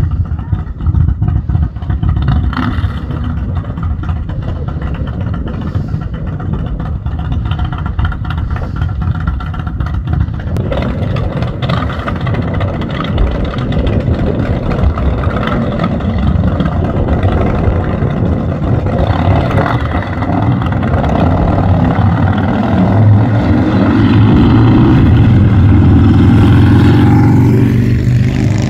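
Motor vehicle engine and road rumble; over the last several seconds an engine revs up, its pitch rising and the sound growing louder.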